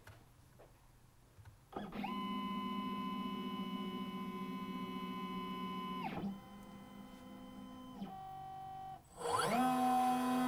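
Desktop CNC milling machine starting an engraving job: a steady motor whine, several tones at once, comes in about two seconds in with a short rising sweep, drops near six seconds to quieter tones that change pitch, then sweeps up again near the end into a new steady whine.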